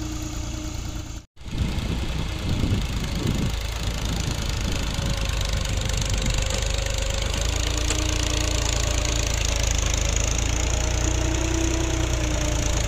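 Farm tractor's diesel engine running under load as it drags a leveling implement through loose soil. The sound breaks off for an instant about a second in, and the engine note wavers up and down briefly before settling into a steady run.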